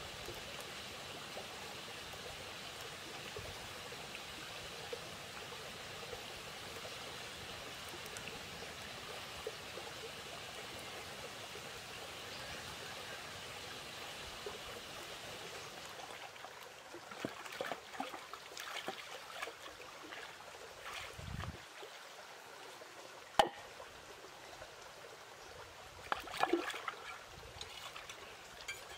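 Small stream running steadily. About halfway through the rushing thins out, leaving trickling water with scattered splashes and taps and one sharp click.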